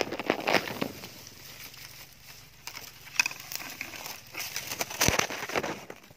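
Grass and dry stalks rustling and crackling as they brush against the handheld camera while it is pushed through them, with a sharp knock about five seconds in.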